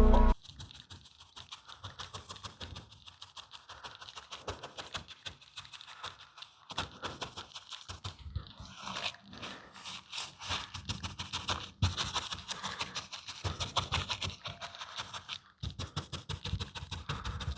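Quick back-and-forth scrubbing of a brush or cloth on a car's surface, a rapid run of rough rubbing strokes that gets louder about eight seconds in.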